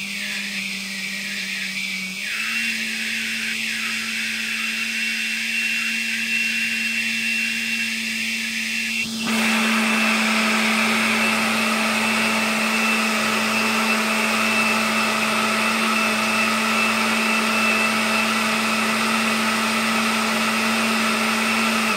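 Countertop blender motor running steadily, blending a thick mix of banana, frozen non-dairy dessert, coconut milk and peanut butter. Its pitch steps up slightly about two seconds in, it gets louder about nine seconds in, and it winds down as it is switched off at the very end.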